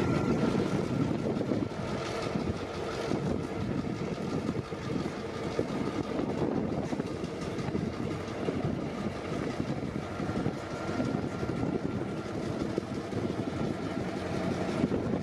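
EMD GP9 diesel-electric locomotive's 16-cylinder two-stroke diesel engine running steadily as the locomotive moves slowly along the yard track.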